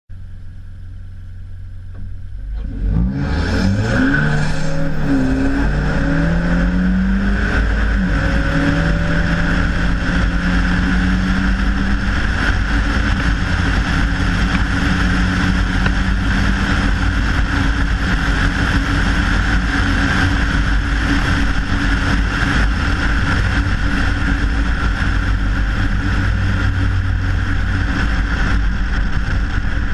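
Hyundai Veloster Turbo's turbocharged 1.6-litre four-cylinder pulls away hard about three seconds in, its revs climbing and dropping back several times through the gears as it accelerates toward 100 mph. Heavy wind and tyre rush on a camera mounted outside by the front wheel builds with speed and dominates the rest.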